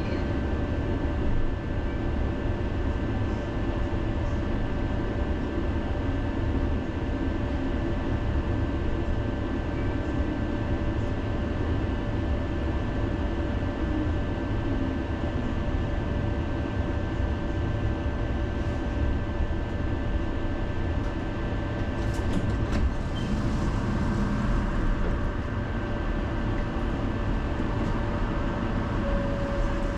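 Tram running along city rails, heard from inside the car: a steady low rumble with a thin steady whine, and a few light clicks about two-thirds of the way through.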